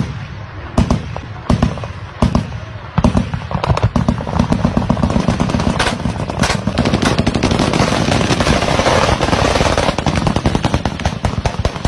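Automatic gunfire: a few separate shots in the first seconds, then rapid sustained fire from about three seconds in that crackles continuously until near the end.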